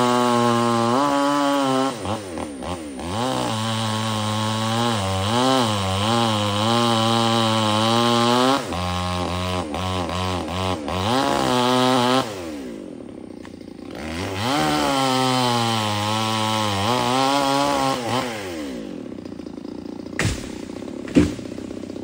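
Chainsaw engine revving up and down while cutting branches, dropping low about twelve seconds in, revving again for a few seconds, then easing off. Two sharp knocks near the end.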